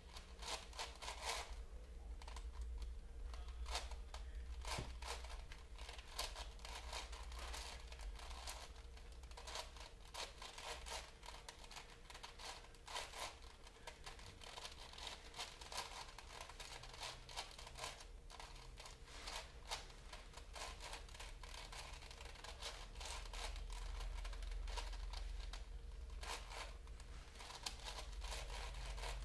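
Plastic Rubik's-style puzzle cube being turned by hand: a dense, irregular run of clicking and clacking as the layers are twisted, over a steady low hum.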